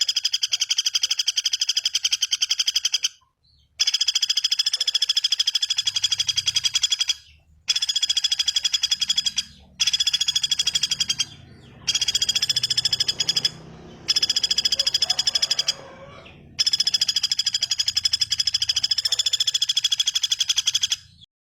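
A bird's very fast, high trill, given in about seven bouts a few seconds long with short breaks between them.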